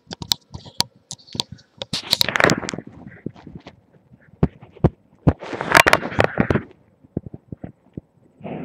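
Contact noise from a webcam's built-in microphone pressed against the body. There are scattered sharp clicks and knocks, with two longer scraping rubs about two seconds in and about six seconds in.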